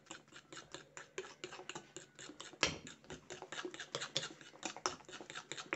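Metal spoon beating a runny egg-and-oil batter in a glazed bowl, clicking against the bowl about five times a second, with one louder knock a little before the middle.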